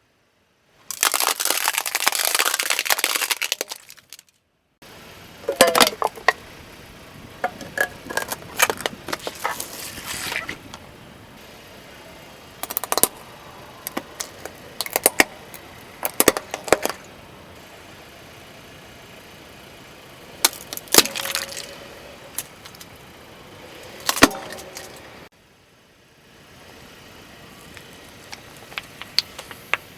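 Brittle objects cracking and crunching as a car tire rolls over and crushes them. A dense crackling burst comes about a second in, followed by scattered sharp snaps and cracks in separate bursts.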